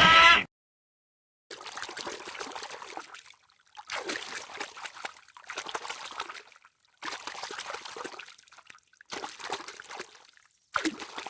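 A loud pitched call breaks off within the first half-second. Then trickling, water-like noise comes in several separate stretches, each starting and stopping abruptly.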